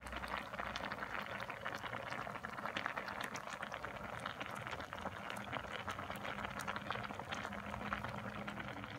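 Creamy pasta sauce with spaghetti and zucchini simmering in a frying pan, bubbling with a dense, continuous crackle of small pops.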